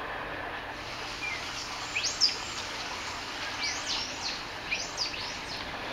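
Birds chirping: a scattered run of short, quick, high chirps over a steady hiss of outdoor background noise.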